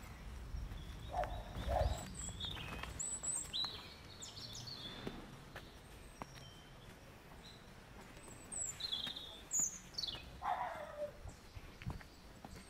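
Wild birds chirping and calling among trees: short whistled calls that slide in pitch, with a few harsher, lower calls about a second in and again near ten seconds.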